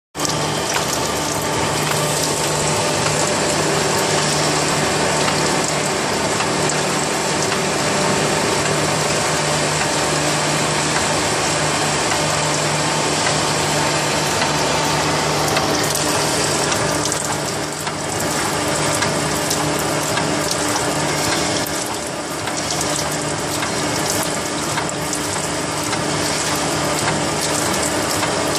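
Bevel gear generating machine running steadily as it cuts the teeth of a large straight bevel gear: a continuous metallic clatter from the tool slides over a steady machine hum.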